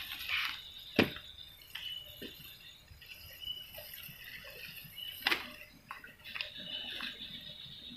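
Small water sounds of dripping and sloshing, with two sharp knocks, one about a second in and one a little past five seconds, over a faint steady high-pitched background.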